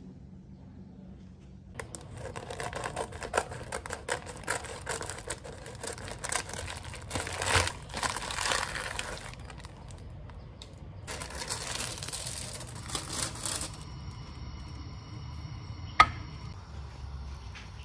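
Plastic food packet crinkling and rustling as it is handled and opened, in two spells. After that a faint steady hum, and a single sharp click near the end.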